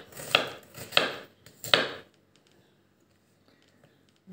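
Chef's knife chopping red onion on a wooden cutting board: three sharp strokes, about two-thirds of a second apart, in the first two seconds.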